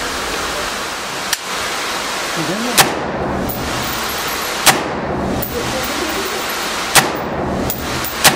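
AR-15-style rifle fired in slow, deliberate single shots: four sharp cracks about two seconds apart, the first nearly three seconds in, over a steady rushing background noise.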